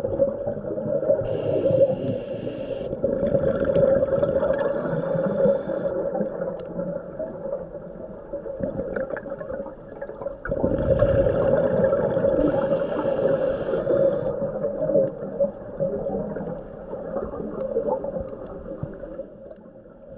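Underwater recording of a scuba diver's own breathing through the regulator: hissing inhalations and surges of exhaled bubbles every few seconds, over a steady low hum.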